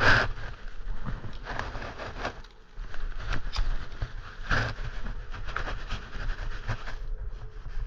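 Irregular knocks, scrapes and rustles of hands at work, with a sharp knock at the start and another about four and a half seconds in.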